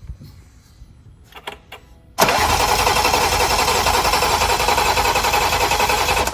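BMW B58 inline-six turned over by its starter motor with coil packs and injectors unplugged, cranking steadily without firing to push oil through a newly installed big turbo. The cranking starts abruptly about two seconds in and cuts off suddenly after about four seconds.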